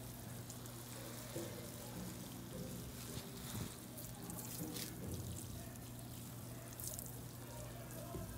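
Garden hose spray nozzle on a shower setting deep-watering straw mulch and plants in containers: a steady spatter of water, with a steady low hum underneath.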